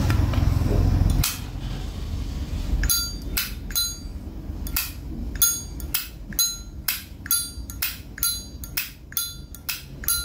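Zippo lighter lid flicked open and snapped shut over and over, each a sharp metallic click with a short ringing ping. After one click, the run starts about three seconds in and goes at two to three clicks a second. This is the classic Zippo lid sound, shown off to judge the lighter's original cam and hinge.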